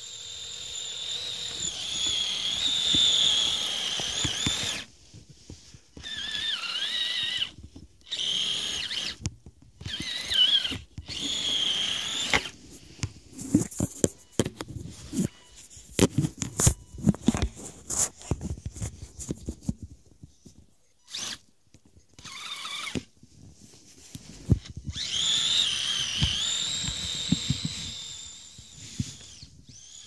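Kyosho Blizzard RC snowcat's electric motor and gear drive whining in bursts as the throttle is worked, the pitch rising and falling. Through the middle the whine mostly drops away and a run of crunching clicks and knocks takes over.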